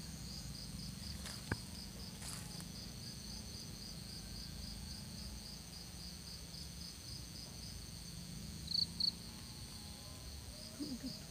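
Insects chirping in a steady high-pitched pulse, about three chirps a second, with a louder double chirp near the end, over a faint continuous high buzz.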